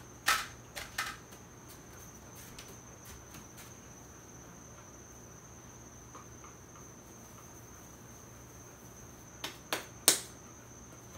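Hands slapping and patting biscuit dough into shape: three sharp slaps in the first second and three more near the end, the last the loudest. A steady high-pitched tone runs underneath throughout.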